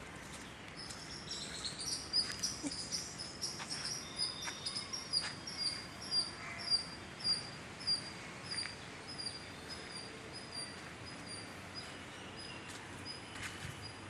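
A bird calling a long series of short, high, repeated notes, about two or three a second, that trail off after about ten seconds, over steady outdoor background noise with a few faint clicks.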